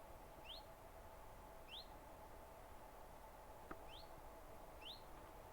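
A small songbird giving a single short, high, rising call, four times about a second apart with a longer gap in the middle, which the uploader guesses is a common chiffchaff. A faint steady hum lies underneath.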